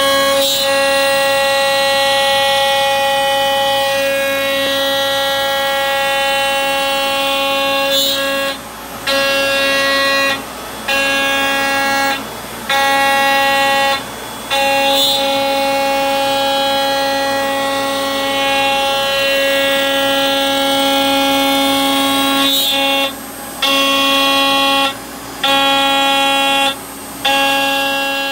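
CNC router cutting aluminum: a loud, steady high-pitched tone with overtones. It drops away briefly about eight times in the second half and comes back each time.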